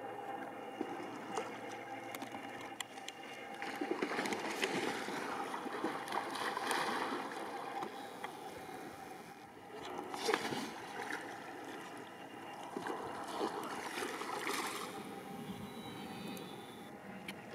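Kayak paddle strokes splashing in the water, with water lapping and gurgling against the hull, swelling and easing several times.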